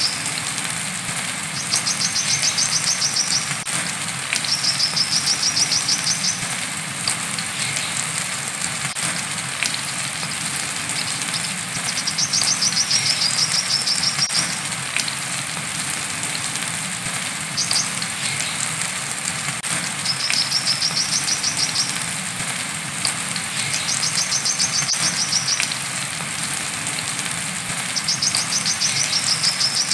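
Brown-throated sunbird (kolibri kelapa) singing its 'wiceh' song: high, rapid trills about two seconds long, repeated every few seconds. Underneath is a steady hiss of rain.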